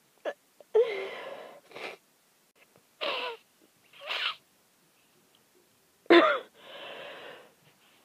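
Sneezes being stifled by a person with a head cold. There are sharp held-back sneezes about a second in and about six seconds in, each trailing off into a breathy exhale, with short wheezy gasps in between.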